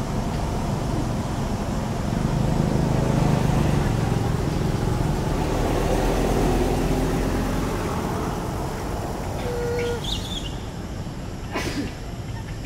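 Low motor-vehicle rumble with a faint hum, swelling over the first few seconds and fading again, as of a vehicle going by. A short high squeak about ten seconds in and a click soon after.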